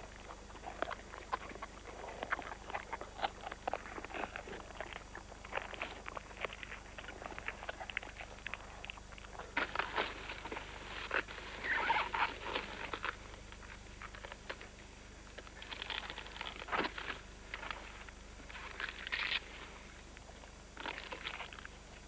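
Gorillas feeding on a banana tree: banana leaves tearing and rustling, with stems snapping and crunching in irregular bursts, busiest about ten to thirteen seconds in and with a sharp snap a few seconds later.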